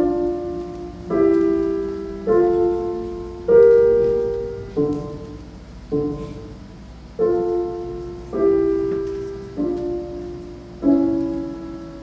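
Slow piano music: a chord struck about every second and a quarter, each left to ring and fade before the next.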